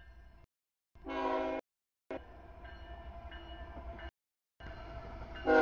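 CSX freight locomotive horn sounding two short blasts as the train approaches the grade crossing, one about a second in and one near the end, each cut off abruptly.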